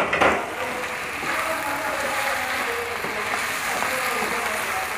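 Raw chicken pieces sizzling as they fry in hot oil with onions and spice paste, a steady hiss that is loudest in a burst at the very start as the pieces go in.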